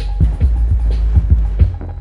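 Bass-heavy electronic music played through a 15-inch subwoofer: a deep, steady bass line under a fast, pounding kick drum.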